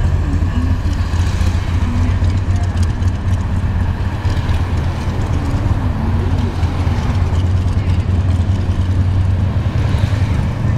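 Steady low engine and road hum of a car driving slowly, heard from inside the cabin.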